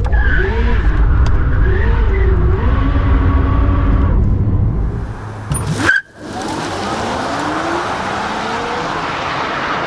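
Bugatti Chiron Super Sport's W16 engine revving and accelerating, its pitch rising and falling. About six seconds in the sound cuts off abruptly, and a car accelerating hard follows, a thin rising whine over a steady rush of wind and tyre noise.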